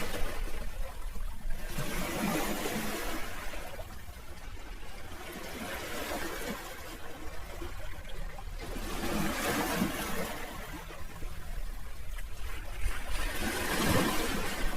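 Sea waves washing in and drawing back, the rush of surf swelling and fading every few seconds, loudest about two, nine and fourteen seconds in.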